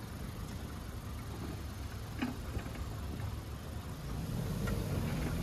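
An off-road vehicle's engine running at low revs, a steady low rumble with a few faint clicks over it.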